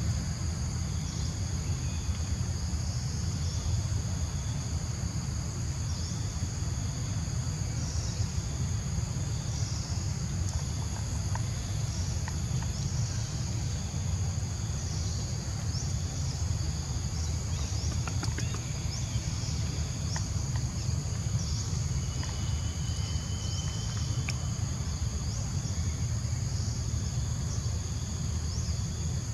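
Steady high-pitched insect chorus, with short chirps repeating every second or two, over a constant low rumble.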